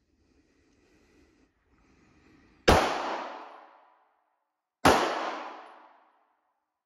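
Two pistol shots about two seconds apart, each followed by a long echo off the walls of the indoor range that dies away over about a second.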